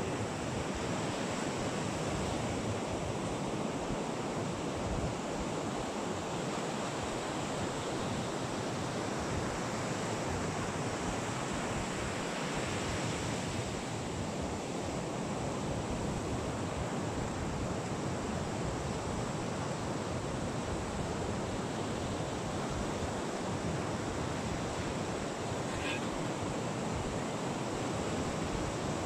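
Ocean surf washing steadily on the beach, with wind buffeting the microphone.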